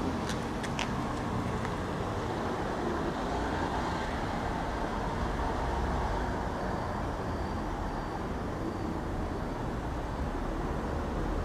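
Steady outdoor street ambience: road traffic noise with a low rumble, and a few faint clicks in the first second.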